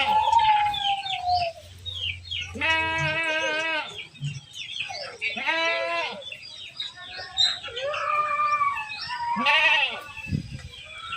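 Goats bleating, four or five long wavering bleats a few seconds apart.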